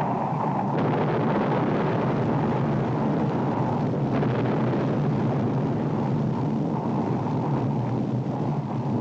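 Film sound effect of a volcano erupting: a steady, dense rumble that does not let up.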